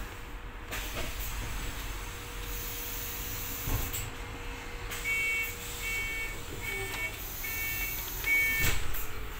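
Ride on a London double-decker bus: steady engine and road rumble. From about five seconds in comes a run of five short, high electronic beeps, with a thud just after the last one.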